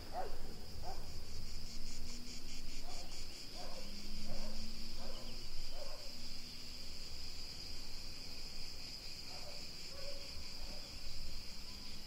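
Continuous high-pitched chirring of summer insects, with a pulsing beat for a couple of seconds near the start. Short, fainter lower calls come and go beneath it.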